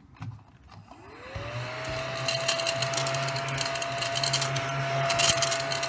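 Ladybug-shaped mini desk vacuum switched on: its motor whine rises about a second in and then holds steady as it sucks up small die-cut paper scraps, with scattered clicks.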